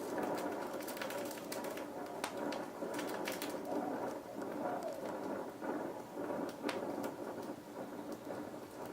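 Oxyacetylene torch flame hissing steadily, with scattered crackles and pops running through it.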